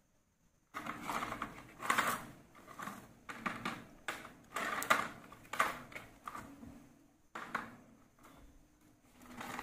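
Plastic toy tractor with trailer pushed back and forth by hand, its wheels rolling and rattling over the play mat in a series of short scraping bursts that start about a second in.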